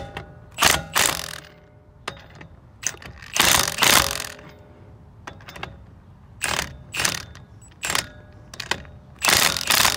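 Milwaukee cordless impact wrench hammering lug nuts tight onto wheel studs in short bursts, about nine in all, with pauses as it moves from nut to nut. The longest burst, about a second, comes a few seconds in.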